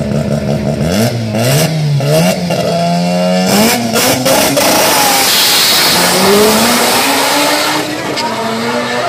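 Tuned Mazda RX-7 drag car revving at the start line, then launching hard about three and a half seconds in and accelerating away down the strip. The engine note climbs in pitch through the gears as it fades into the distance.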